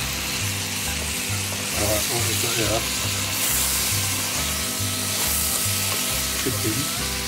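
Chicken, sweet pointed peppers, onion and tomato sizzling steadily as they fry in a non-stick pan, stirred with a spatula, with a low repeating bass beat underneath.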